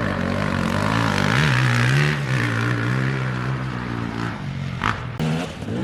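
Motocross dirt bike engine revving on the track. Its pitch rises about a second and a half in, holds high for a couple of seconds, then eases off near the end.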